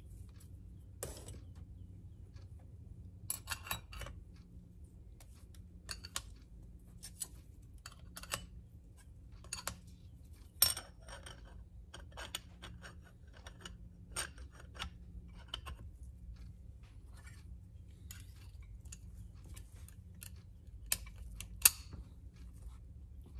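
Steel and friction clutch plates clinking against each other and the Ford C4 clutch drum as they are lifted out and set back in. Light metallic clicks come irregularly throughout, with two sharper clanks, one about ten seconds in and one near the end. The plates are being exchanged to adjust the clutch pack clearance.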